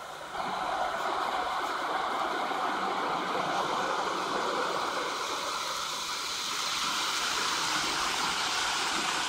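Automatic car wash spraying water onto the car, heard from inside the cabin as a steady rushing hiss that swells up about half a second in.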